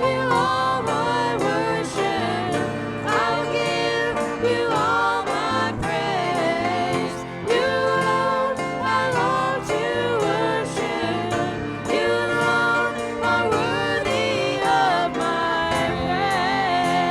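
A song: a singing voice with sustained, gliding notes over instrumental accompaniment with a steady beat.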